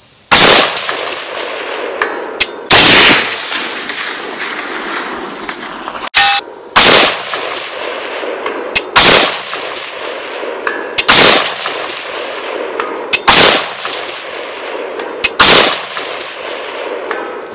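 ATI Alpha Maxx AR-15 rifle firing seven aimed shots at a steady pace of about one every two seconds. Each loud crack is followed by a long echoing decay.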